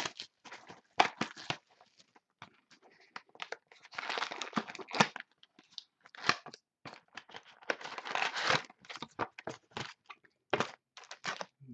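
A sealed box of 2012 SP Authentic football cards being opened: its wrapper crinkled and torn off and the cardboard lid pulled open, in irregular crackles and rips. Two longer stretches of rustling come about four and eight seconds in.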